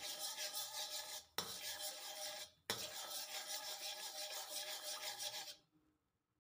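Spatula scraping rapidly back and forth across the bottom of a wok while pushing melting butter around, about four strokes a second. It breaks off briefly twice and stops about five and a half seconds in.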